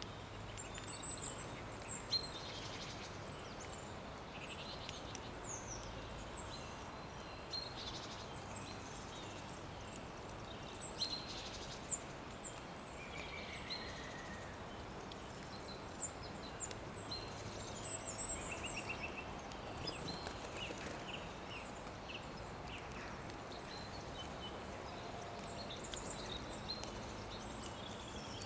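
Quiet outdoor ambience: small birds chirping and calling at intervals, short high notes scattered throughout, over a steady low background noise.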